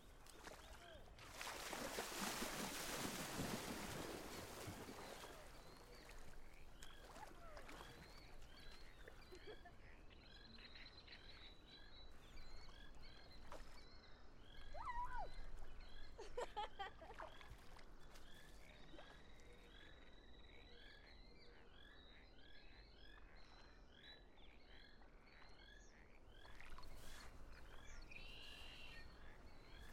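Faint outdoor ambience at the water's edge: many short chirping calls repeat over and over, thickening from about ten seconds in, with a thin steady high tone under them at times. A few seconds of rushing noise come near the start.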